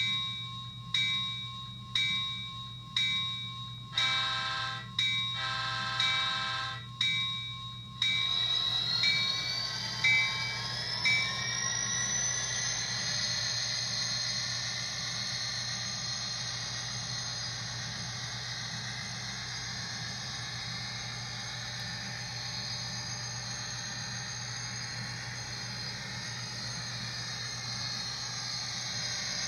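Model diesel locomotive sound decoder in an HO-scale BNSF SD40: the bell rings about once a second and the horn sounds twice, a short blast then a longer one. Then the engine sound revs up with a rising whine and settles into a steady running drone as the train moves off.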